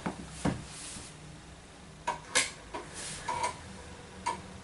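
Commodore Amiga 500 floppy drive clicking as its head steps while loading a file from disk: a couple of soft knocks near the start, then from about two seconds in a run of irregular sharp clicks.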